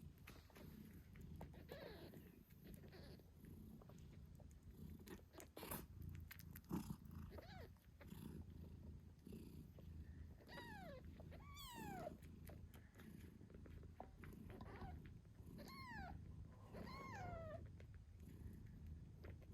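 Faint, steady purring from a British shorthair mother cat, with scattered small clicks. Her 8-day-old newborn kittens let out a few high, thin squeaks that fall in pitch, a cluster about halfway through and another a little later.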